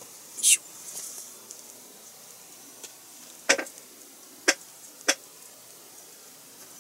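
Small plastic parts of a 1/24 scale model-kit engine being handled and pressed together by hand: a brief rustle near the start, then three sharp plastic clicks in the second half.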